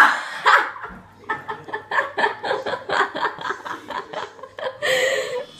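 A person laughing hard in a fast run of short bursts, after a sudden loud noise at the start, and ending in a louder drawn-out cry near the end.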